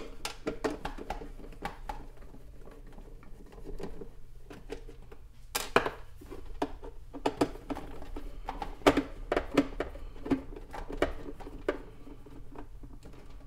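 A long Phillips screwdriver working small screws out of the plastic top housing of a DeLonghi combination coffee and espresso machine. Irregular clicks and light taps of metal on hard plastic, with a louder cluster of knocks about halfway through.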